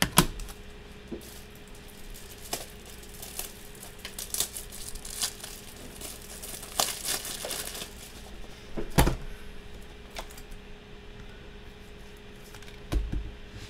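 Foil trading-card pack wrappers crinkling and rustling as they are handled, in clusters of small crackles, with three sharp knocks of cards or plastic top loaders against the table: one right at the start, one about two-thirds through and one near the end.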